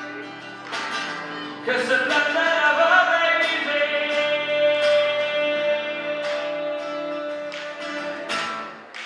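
Live solo song: a man singing to his own strummed acoustic guitar, holding one long note through the middle before the strumming carries on.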